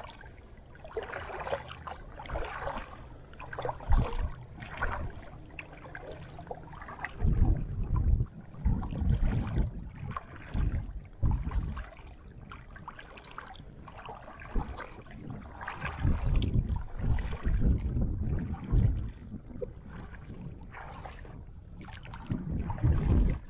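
Shallow water sloshing and splashing around legs wading through it, with gusts of wind buffeting the microphone.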